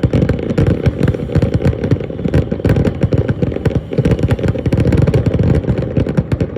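Fireworks display in a dense barrage: rapid, overlapping bangs and crackles, loud and mostly low-pitched.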